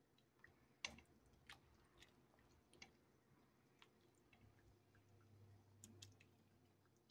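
Near silence with faint, scattered clicks and taps of a slotted spoon knocking against a stainless steel pot as it is dragged through soup to fish out turkey bones.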